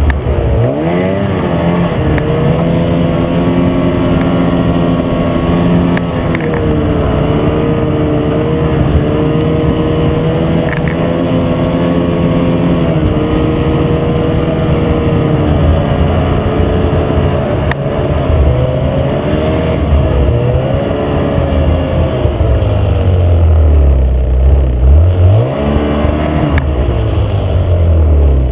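Snowmobile engine running under throttle, its pitch holding steady for stretches, then falling and rising as the throttle changes; near the end the revs drop low and sweep back up.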